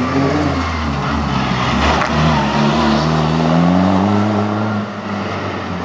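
Diesel Škoda Fabia rally car's engine pulling hard under acceleration. Its pitch climbs steadily through the middle, then drops about five seconds in.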